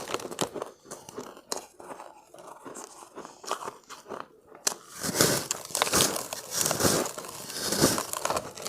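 Close-miked biting and chewing of refrozen shaved ice: sparse crisp crackles at first, then from about five seconds in loud, dense crunching.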